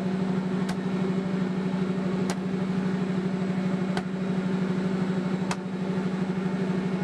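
A boat engine running steadily with an even pulsing drone, and four sharp knocks about a second and a half apart as a wooden mallet crushes ice blocks in a metal basin.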